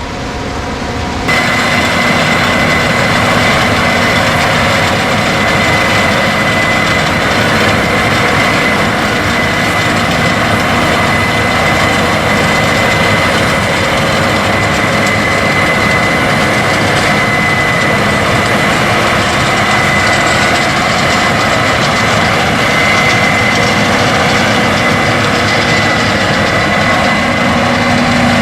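Case IH 8250 combine harvester running steadily while harvesting wheat: a loud, even machine noise with a constant high whine. It grows louder over the first second and then jumps up abruptly.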